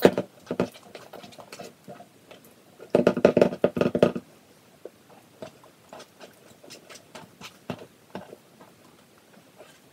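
A utensil stirring and scraping thick, foamy shaving-cream slime in a ceramic bowl as activator is mixed in, with quick clicks and taps against the bowl. About three seconds in there is a louder spell of fast stirring, then slower, quieter scraping.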